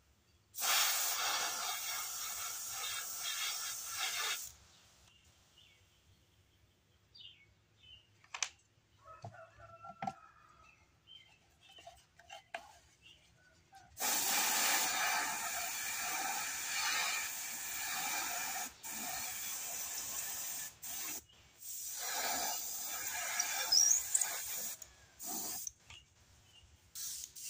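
Airbrush spraying in hissing bursts: one spray of about four seconds near the start, then a long run of spraying from about halfway, cut by several short pauses near the end. Between them, faint handling knocks and rubs.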